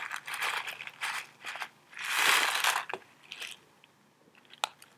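Foil tea pouch crinkling and rustling as it is handled and opened. The rustle comes in several bursts, the loudest about two seconds in, with a few small clicks near the end as dry rolled oolong leaves are shaken out into a hand.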